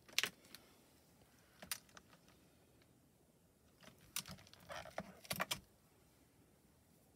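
Clear photopolymer stamps being handled and set down in a Mini Misti stamp positioning tool: a sharp plastic click just after the start, another before the two-second mark, then a cluster of light clacks with a brief rustle of paper and stamps about four to five and a half seconds in.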